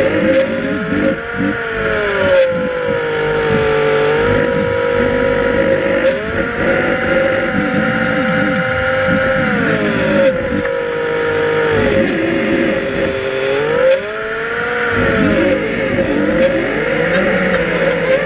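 A motor drone heard underwater, its pitch sliding up and down every few seconds over a low rumbling crackle.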